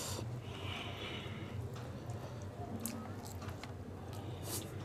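Close-up mouth sounds of chewing a mouthful of chicken biryani, with several wet smacks and clicks, over a steady low hum. A short breathy hiss comes near the start.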